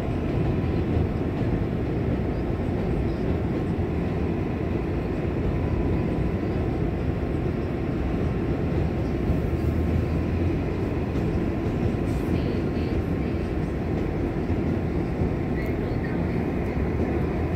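New York City 7 subway train running between stations, heard from inside the car: a steady low rumble of wheels on rail and traction motors, with a faint steady whine above it.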